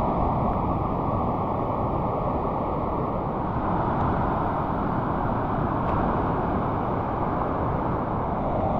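Steady roar of rushing river water and waterfalls, an even rush with most of its weight low down.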